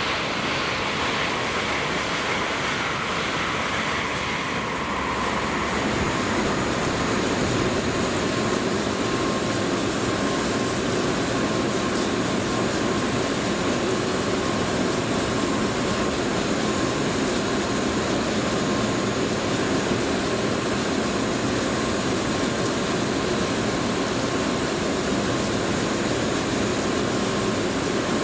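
An N700 Shinkansen running through the station at speed for the first few seconds, then a steady rushing hiss of snow-melting sprinklers spraying water over the tracks as the train runs off.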